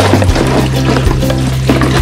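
Background music with a steady beat over held bass notes; the bass note changes about a third of a second in.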